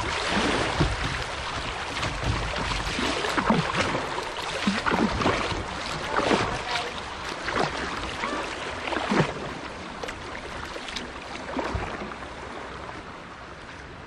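Fast, choppy river current rushing and splashing around a kayak's hull as it runs through moving water, with irregular splashes; the rush eases and grows quieter toward the end.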